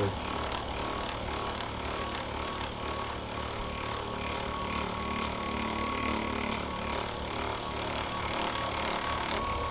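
Steady hum of a motorized treatment machine running, with a constant tone and a faint regular pulsing.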